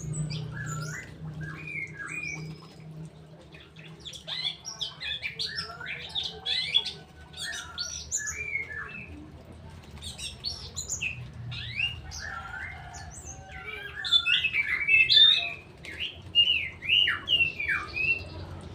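Songbirds chirping and whistling: quick notes sliding up and down, coming in busy bursts, loudest and densest toward the last few seconds.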